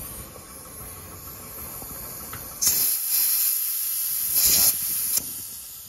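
Compressed air hissing from an air chuck for about two and a half seconds, starting a little before the middle and swelling briefly near its end. The air is pressurising a two-stroke engine's crankcase for a leak test and escapes past a crankshaft seal that the owner finds is shot.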